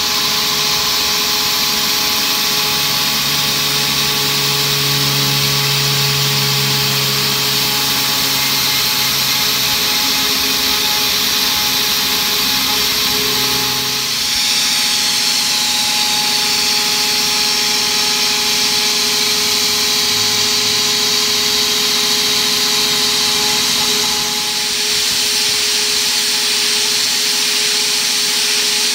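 CNC router spindle milling aluminium plate with a small end mill: a steady high machine whine over a hissing cutting noise. The sound dips briefly twice, about halfway through and again some ten seconds later.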